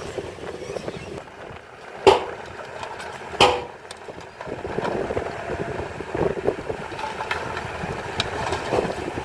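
Heavy construction machinery running with a steady engine noise, broken by two loud sharp knocks about a second and a half apart, the first about two seconds in.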